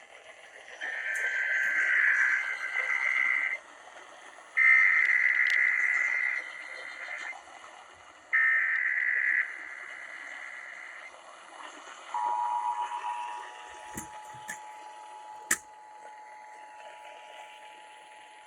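Emergency Alert System test on broadcast radio: three bursts of SAME header data tones, then about a second later the EAS two-tone attention signal, two steady tones sounded together and held. A couple of sharp static clicks sound over the attention tone.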